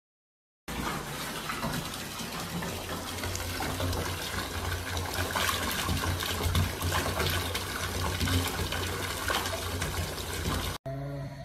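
Bathtub mixer tap running full, water pouring over a cat and splashing into the tub, as an even rush that starts about a second in and stops suddenly near the end. A short low pitched sound follows right after.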